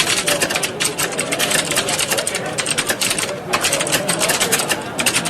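Many computer keyboards being typed on at once: a dense, continuous clatter of overlapping key clicks, briefly thinning about three and a half seconds in.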